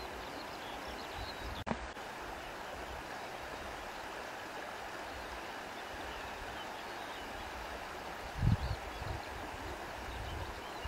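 Steady rushing of flowing water, with faint high chirps here and there. A brief click comes about two seconds in, and a few low thumps about eight seconds in.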